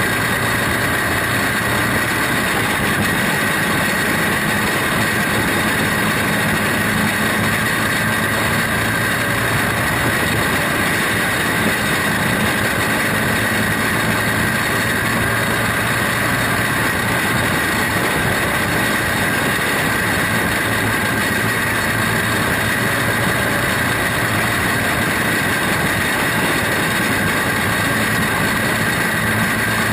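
Onboard sound of a 120 Champ Lite dirt racing car under way on the track: its small engine runs hard and steady with a constant rushing noise over it, without clear revving up or down.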